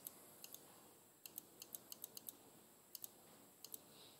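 Faint clicks of laptop keys pressed again and again, often in quick pairs, about a dozen through the stretch, as the slides are skipped ahead.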